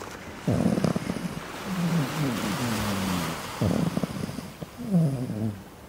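Sleeping Chihuahua puppy talking in its sleep: several short grumbling whines that slide down in pitch, with ocean surf washing behind.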